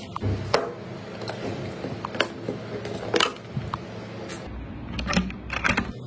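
A string of sharp clicks and taps with light scraping, from hands handling a motherboard, its packaging and the CPU socket hardware.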